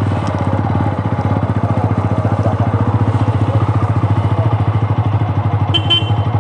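Single-cylinder motorcycle engine idling steadily with an even, fast low pulse, just after being started.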